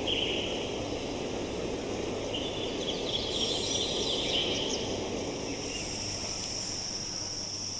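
Steady rush of a forest waterfall and stream, with birds calling about two to four seconds in and a steady high insect trill setting in about halfway through.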